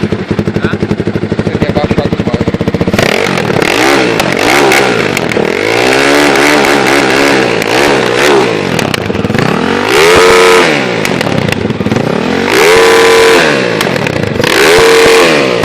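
Honda Twister motorcycle single-cylinder engine, bored out to 420cc, running loud. It idles with a fast, even beat for about three seconds, then is revved again and again: short blips, a longer rise and fall, and several sharp revs held briefly near the top, the loudest of them in the second half.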